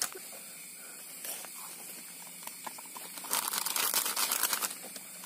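A plastic instant-coffee sachet being torn open: a dense burst of crinkly tearing about three seconds in, lasting over a second, over a steady hiss.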